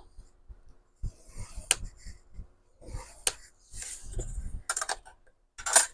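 Small hard craft tools handled on a tabletop: a couple of sharp clicks and several short stretches of rubbing and scraping, the loudest a scrape near the end.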